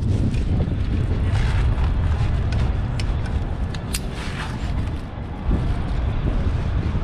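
Wind buffeting the microphone high up on the outside of a tower: a steady low rumble, with a few sharp clicks about three and four seconds in.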